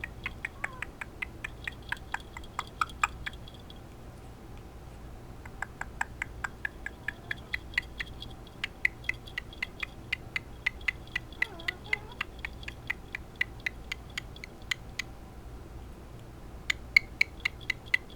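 Severe macaw making rapid clicking noises, about four clicks a second, in several runs broken by short pauses.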